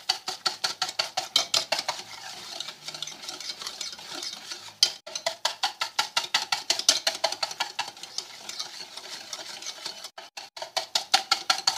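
A utensil beating an egg into creamed ghee and powdered sugar in a bowl: rapid, even clicking of the utensil against the bowl, about five strokes a second, with short breaks about five seconds in and just after ten seconds.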